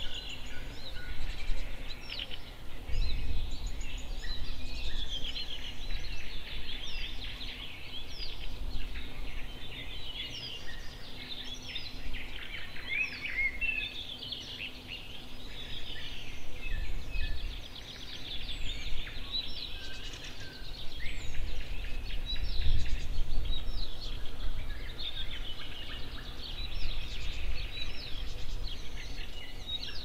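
Several songbirds singing at once in spring, a dense chorus of overlapping chirps, trills and whistles that never stops. Beneath it a low rumble swells and fades several times.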